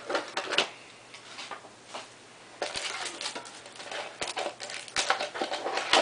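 Foil wrapper of a Yu-Gi-Oh! booster pack crinkling as it is handled, dense crackling from about two and a half seconds in after a few faint clicks.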